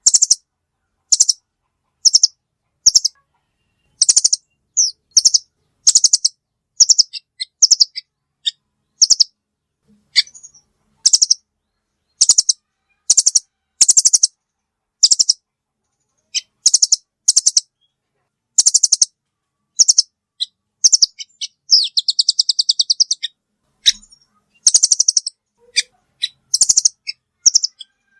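Velvet-fronted nuthatch (rambatan) call recording used as a bird-trapping lure: short, high, rapid chattering trills repeated one or two times a second, with one longer trill of nearly two seconds about three-quarters of the way through.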